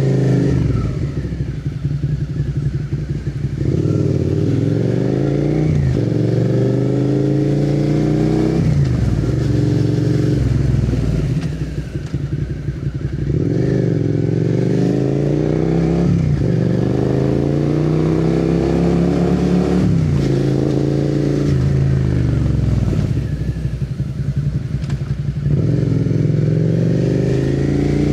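Suzuki SV650 V-twin through a MIVV replica slip-on exhaust with the catalytic converter removed, heard from the rider's seat, accelerating hard again and again. Its pitch climbs through each gear and drops at every upshift, about ten times.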